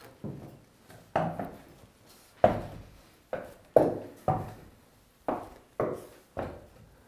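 Footsteps climbing steep wooden stairs, about nine knocks at an uneven pace, each with a short echo in a small stone-walled room.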